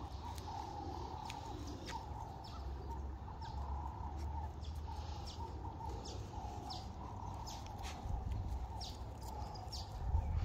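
Small birds chirping, many short high chirps scattered throughout, over a steady low rumble.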